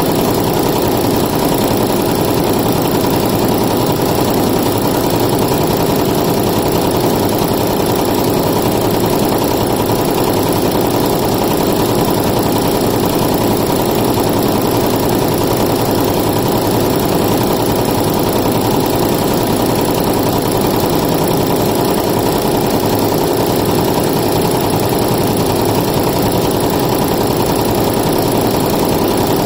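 Multi-needle embroidery machine stitching at speed into jacket fabric: a steady, unbroken mechanical chatter of the needle bar and drive.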